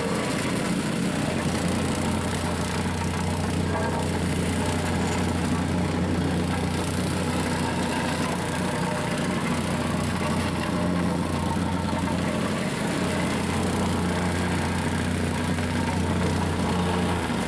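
Gasoline-engine vibratory plate compactor running steadily with a constant low drone as it compacts hot-mix asphalt into a cut-out pothole patch.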